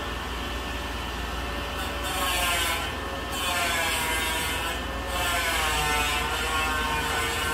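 Power tool from construction work in the neighbouring room: a steady whine that starts to waver in pitch, joined from about two seconds in by repeated rasping bouts, as of cutting or grinding.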